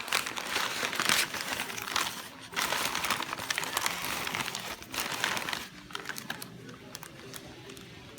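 Plant packaging being handled and crinkled: a dense run of crinkling and crackling with two short lulls, growing sparser near the end.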